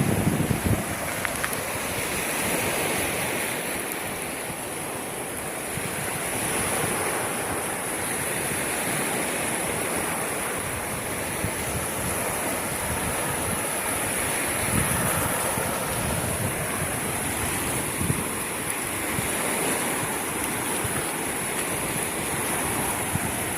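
Sea waves washing steadily onto the shore, with wind buffeting the microphone now and then.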